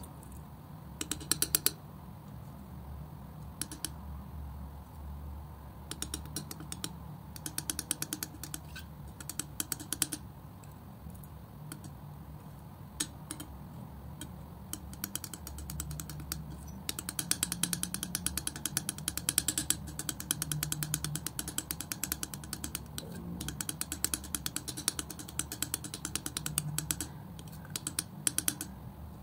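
Steel palette knife scraping and smearing thick acrylic paint on a flat board, giving runs of rapid, sticky clicks that come and go, with the longest run in the middle, over a low steady hum.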